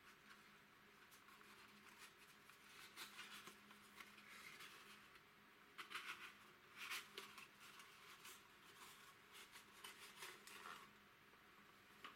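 Faint rustling and scraping of a cardboard valve box and its cardboard inner sleeve being handled. It comes in short scratchy bursts, the loudest around the middle.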